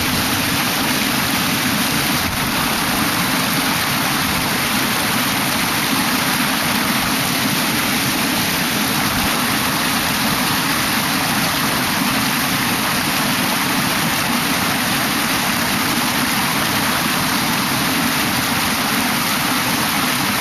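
Mountain stream water rushing in a steady, unbroken flow.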